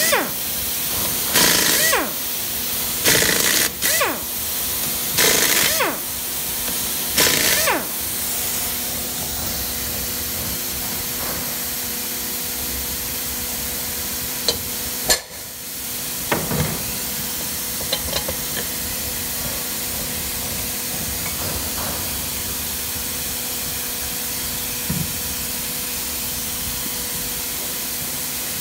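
Air impact wrench undoing the hub nuts of a full-floating rear axle, run in about five short bursts over the first eight seconds, each ending in a falling whine as the air motor spins down. After that a steady hiss runs on.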